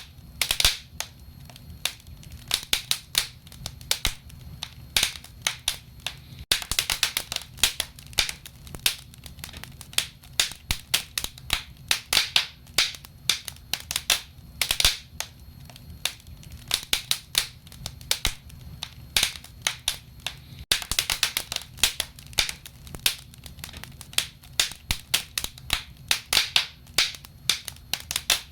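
Wood fire crackling in a fireplace: frequent irregular pops and snaps, some in quick clusters, over a low steady rumble of the flames.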